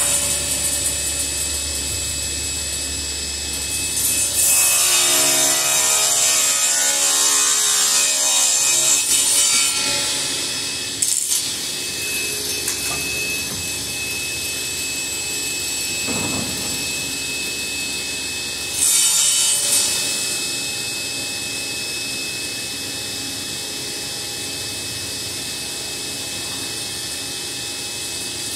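Table saw running steadily, with its blade ripping along the rough edge of a wood slab carried on a plywood straight-line jig, louder from about four to ten seconds in; a second, shorter cut comes near twenty seconds. The cuts are straight-line rips that take the crook off the boards' edges.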